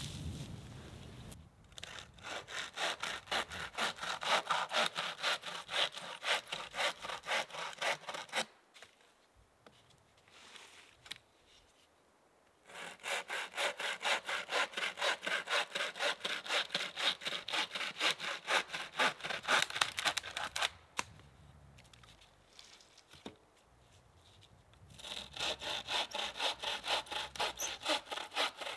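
Hand saw cutting through a dry log in quick back-and-forth strokes, about three strokes a second, in three bouts with pauses of a few seconds between them.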